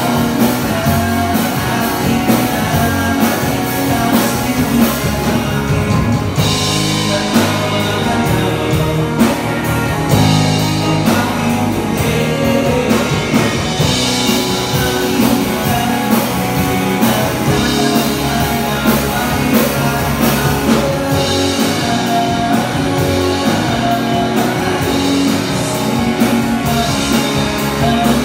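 Three-piece rock band playing live: electric guitar, bass guitar and drum kit, with a lead vocal singing over them.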